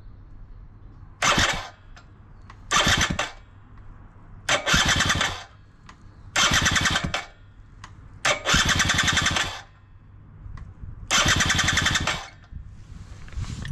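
A machine running in six short bursts with a fast mechanical rattle, each burst stopping after about a second.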